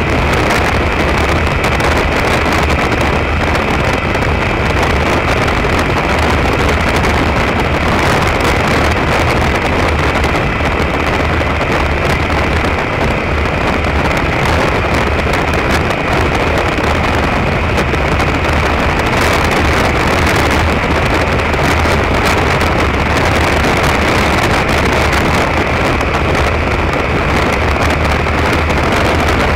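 Derbi Terra Adventure motorcycle riding at a steady cruising speed: a steady, even engine hum under heavy wind rush over the mounted camera.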